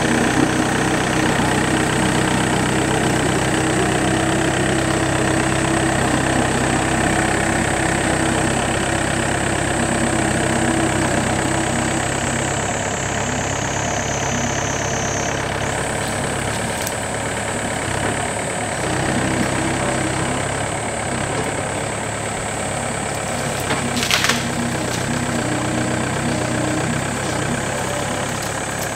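Yanmar B7 mini excavator's diesel engine running steadily as the machine travels and works its boom, with a high whine that slides down in pitch about twelve seconds in and jumps back up a few seconds later, and a brief sharp noise about twenty-four seconds in.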